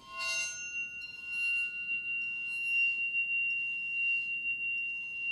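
A bow is drawn across the edge of a sand-sprinkled Chladni plate, and the plate sings a single high, steady ringing tone. There is bow scratch and a few extra overtones as the note starts.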